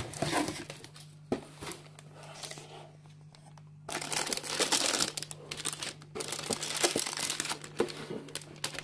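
Clear plastic bags holding model-kit sprue runners crinkling as they are handled and lifted out of a cardboard box. The crinkling eases off for a couple of seconds in the middle, then picks up again.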